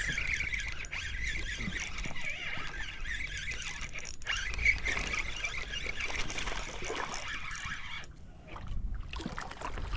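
A flock of gulls calling, many overlapping high wavering calls at once, with wind rumbling on the microphone; the calls thin out briefly about eight seconds in.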